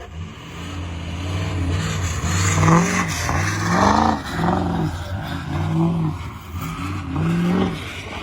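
Ford 6.0 Powerstroke turbodiesel truck engine revving up and down over and over, its pitch rising and falling about five times in quick succession.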